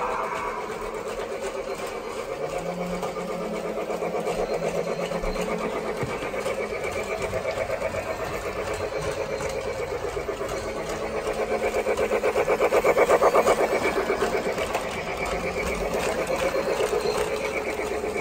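Polar Express toy train running around its track, its motor and wheels making a steady, evenly pulsing clatter.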